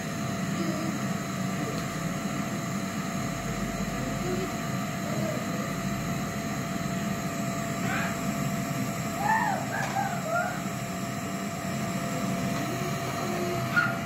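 Red canister vacuum cleaner running steadily, its floor brush pushed back and forth over carpet tiles.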